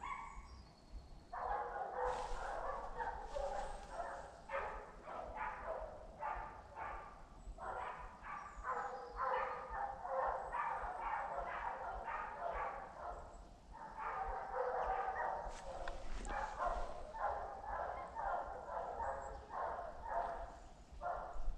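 Hunting dogs barking in quick, continuous runs, several barks a second, with a short lull a little past the middle: hounds giving tongue as they chase wild boar in a driven hunt.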